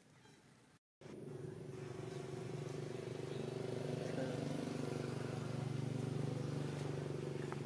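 A motor running with a steady, even hum that starts abruptly about a second in, after a brief dropout.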